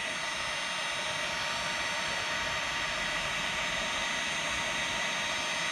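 Electric heat gun running steadily, its fan blowing a hot-air hiss onto a rubber crankcase-vent hose coupling to soften the glue holding it on.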